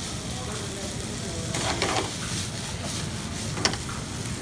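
Chicken strips and bell peppers sizzling in a frying pan over a gas flame while being stirred with a wooden spatula. A sharp knock comes about three and a half seconds in.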